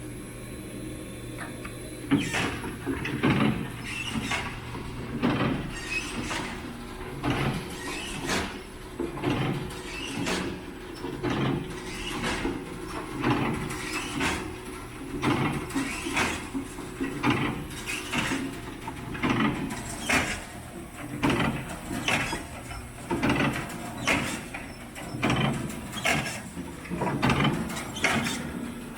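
PFM Hurricane horizontal flow wrapper running: a steady machine hum, joined about two seconds in by a rhythmic mechanical clatter that repeats about once a second as the machine cycles.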